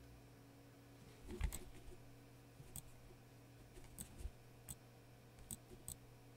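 Quiet room with a low steady hum and about six faint, sharp clicks scattered through it, the loudest, a little over a second in, carrying a low thump.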